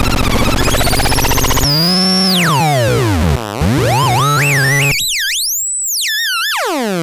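Homemade optical-theremin noise box making buzzy, warbling electronic tones that swoop up and down in pitch, turning into cleaner gliding tones about two seconds in and ending in a long falling sweep.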